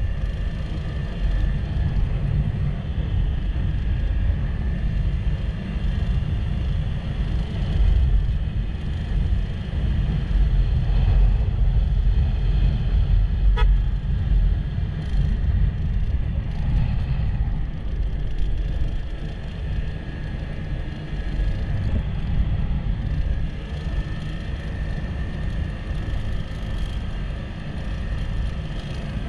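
A road vehicle on the move: a steady low rumble of engine and road noise, with one sharp click about halfway through.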